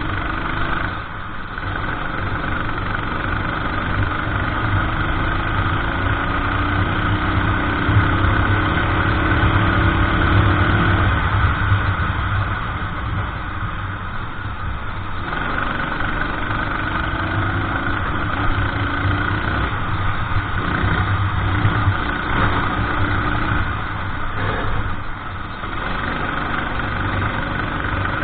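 Racing kart engine running hard around a track: it winds up for several seconds, then drops off, over and over. Each stretch of rising pitch is acceleration down a straight, and each fall is lifting off into a corner.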